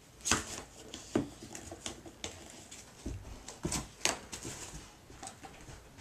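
A golden retriever rummaging through an open suitcase, giving irregular knocks, clatter and rustling as it noses and paws at the packed things. Sharp knocks come about a third of a second in, just past a second and around four seconds.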